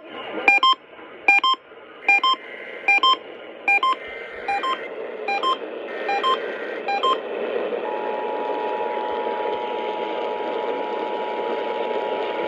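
About ten short electronic beeps, each a chord of several tones, repeating a little faster than once a second over radio hiss. Faint EAS header data tones run underneath. About eight seconds in, the steady two-tone Emergency Alert System attention signal starts and holds.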